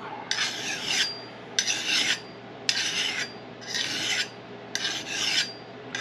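Hand-held 300/1000-grit sharpener rasping along the edge of a tomahawk head: five even strokes about a second apart.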